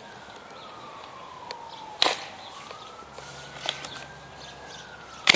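Sharp snaps of an Exploderz gel-ball blaster firing, one about two seconds in and a louder one near the end, with a few fainter clicks of its slide. Under them a faint siren wails, sliding slowly down in pitch, back up, and down again.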